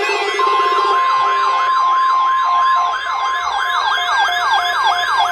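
Electronic siren tones sweeping rapidly up and down, about four sweeps a second, several layered together, joined about half a second in by a steady high alert tone like the NOAA Weather Radio 1050 Hz warning alarm tone. A lower steady tone drops out about a second in.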